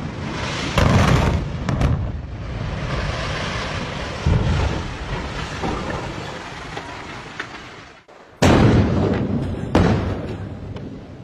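Controlled demolition: a high-rise building collapses with a loud rumble that slowly fades. After a sudden cut, two sharp blasts about a second and a half apart set off demolition charges at the base of tall chimney stacks, followed by a fading rumble.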